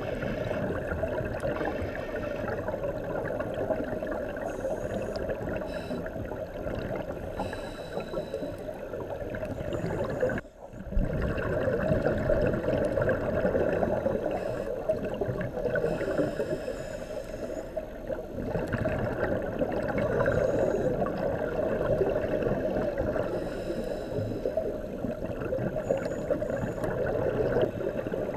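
Underwater sound through a dive camera's housing: a scuba diver's exhaled regulator bubbles gurgling in a steady rush that swells and fades every few seconds. The sound cuts out briefly about ten seconds in.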